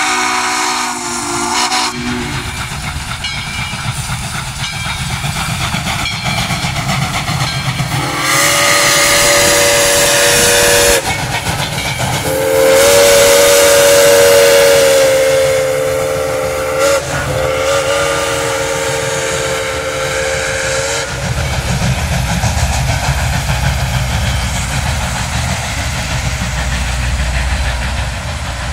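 Whistles of Southern Railway steam locomotives 630 and 4501 running double-headed: a whistle chord ending about two seconds in, then three more blasts, the middle one the longest, over the heavy rumble of the train. In the last third the whistling stops and the passenger cars roll by with a steady low rumble on the rails.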